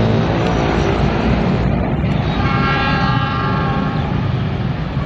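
KA 71 Gajayana passenger train running by with a steady rumble; a little over two seconds in, its locomotive horn sounds for about a second and a half.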